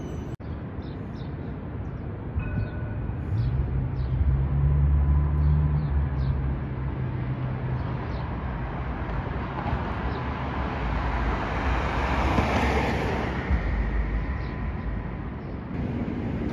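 Downtown street traffic. A heavy vehicle's low engine hum comes in about three seconds in, and later a vehicle passes close by, its tyre and engine noise swelling and fading.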